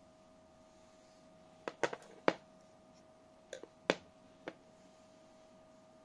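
A cluster of short, sharp clicks and taps as an open folding knife is handled, turned over and set down on a hard surface, the loudest a little after two seconds in. A faint steady hum runs underneath.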